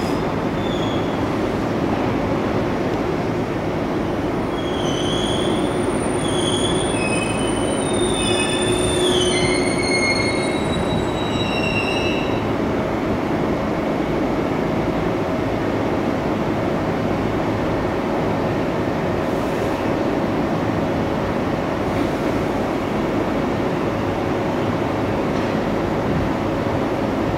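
A JR 115-series electric multiple unit pulls into the platform and brakes to a stop, with a steady rumble of wheels on rail and a run of short, high-pitched brake and wheel squeals over roughly the first twelve seconds. The stopped train then stands with a steady hum.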